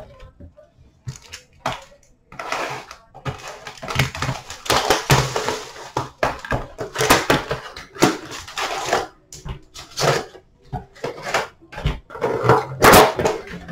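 Cardboard and wrapper packaging of a box of trading card packs crinkling, tearing and rustling as it is opened, then sharp taps and clicks near the end as the packs are pulled out and stacked on the counter.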